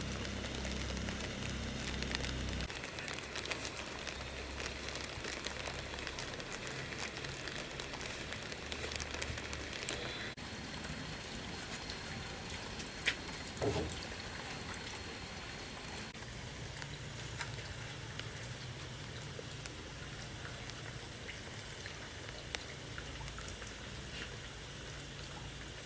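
Steady rain falling, with a few louder sharp ticks about halfway through.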